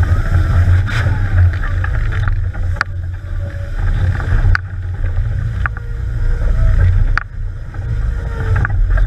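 Off-road trial vehicle's engine running under load, heard from inside the cabin as a deep, steady rumble. A few sharp knocks and bangs cut in as the vehicle lurches over rough ground.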